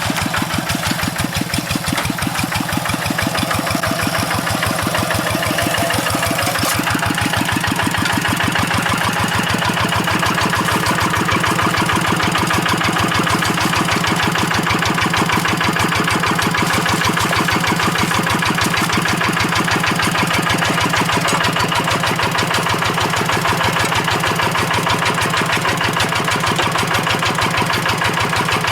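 Kubota RD85Di2S single-cylinder diesel engine of a hand tractor running steadily, with a fast, even beat of firing strokes.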